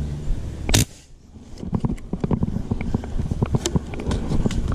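A single sharp airgun shot about a second in, fired at a snakehead in a fishpond, followed by dense rustling of leaves and branches and small clicks as the shooter moves and handles the gun.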